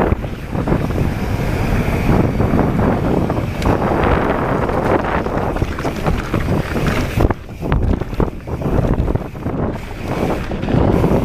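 Wind rushing over the camera microphone as a mountain bike descends a dirt trail, with the tyres rolling over the ground. A cluster of sharp knocks and rattles comes in the second half as the bike runs over rough, stony ground.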